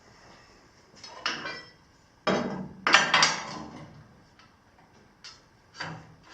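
Clanks and knocks of tools and metal parts being handled on a woodworking machine's table: a light knock about a second in, a louder cluster of clanks around the middle, then a few softer taps near the end.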